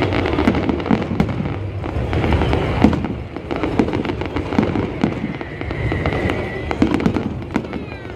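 Aerial fireworks display: shells bursting in booms, with many sharp cracks and crackling reports overlapping. A whistle rises above the bangs for about a second past the middle.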